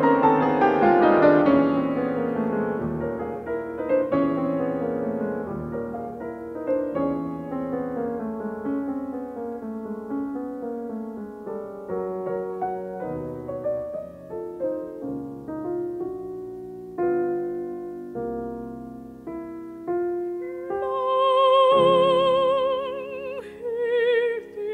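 Piano playing a flowing interlude in a classical art song, loud at first and gradually softer. Near the end a mezzo-soprano voice with wide vibrato comes back in over the piano.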